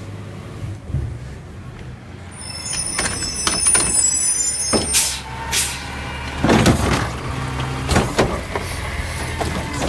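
Recycling truck's bin-lift arm gripping, lifting and tipping a recycling cart over a steady low hum. A high squeal comes about two and a half seconds in, then a run of clunks and knocks as the cart is handled.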